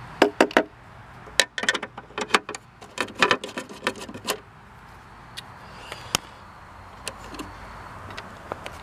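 Quick metallic clicks and rattles from a screwdriver working the screws and hardware of a 1950s clock radio's steel chassis. They come thick for the first four seconds or so, then only a few scattered clicks follow.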